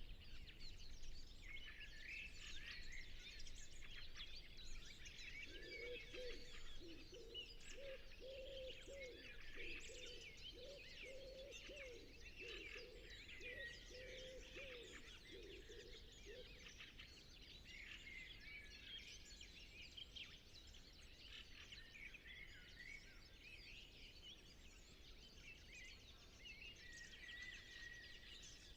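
Common wood pigeon cooing, a low series of repeated soft notes for about ten seconds in the middle, over a steady chorus of small songbirds chirping.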